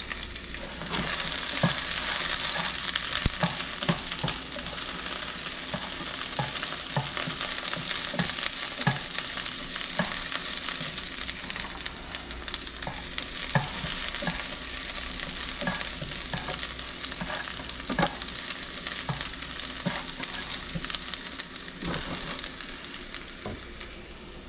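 Food sizzling steadily in hot oil in a pan, with a utensil clicking and scraping against the pan now and then.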